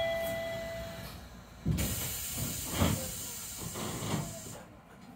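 Chime tones from the Chiba Urban Monorail car ring out during the first second. Then a sudden burst of compressed-air hiss runs for about three seconds, with a few dull thuds, as the car prepares to depart the platform.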